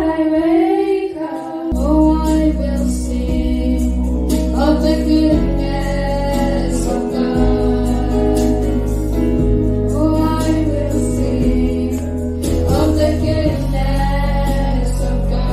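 Gospel-style singing with instrumental accompaniment. Only voices are heard at first; about two seconds in, a low sustained accompaniment comes in under them, its held notes changing every couple of seconds.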